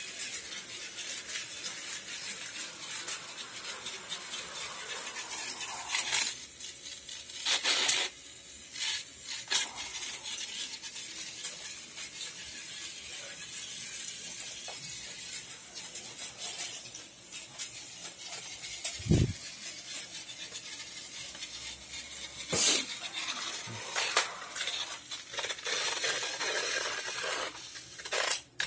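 Battery-powered toy trains running on plastic track: a steady high whir and rattle of the motors and wheels with scattered light clicks. Several sharp plastic clacks stand out, the loudest about six, eight and twenty-three seconds in, with a dull thump about nineteen seconds in.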